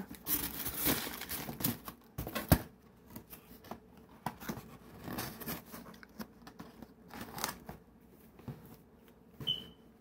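Packaging being handled: crinkling and rustling of plastic, foam and cardboard around an incense waterfall burner as it is put back into its box. The handling is busiest in the first couple of seconds, with a sharp knock about two and a half seconds in, then only scattered faint rustles.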